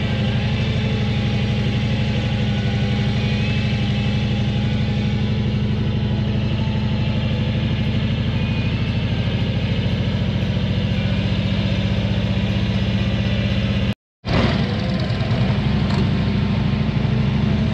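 Motorcycle engine running steadily at low road speed, heard from the rider's seat. The sound cuts out completely for a moment about three-quarters of the way through, then the engine carries on.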